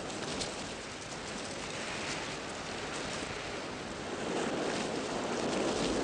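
Strong wind gusting through dense leafy bushes: a steady rushing rustle of leaves that swells louder about four seconds in.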